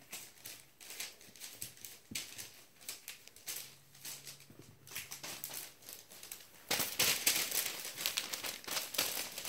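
Crinkling and rustling of a paper sheet spread on the floor as Havanese puppies step and scramble over it, in light, irregular bursts at first, then denser and louder about two-thirds of the way in.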